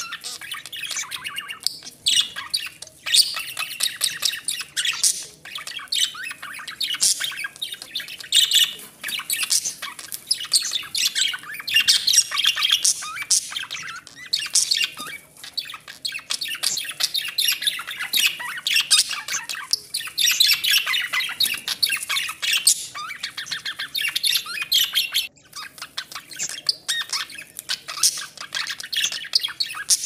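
Budgerigars chattering continuously: a dense run of rapid chirps, squawks and clicks with only brief lulls.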